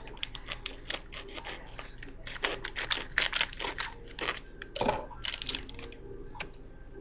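Plastic packaging crinkling and tearing as it is handled and pulled open. The crackling is densest in the middle, with a few sharper snaps near the end.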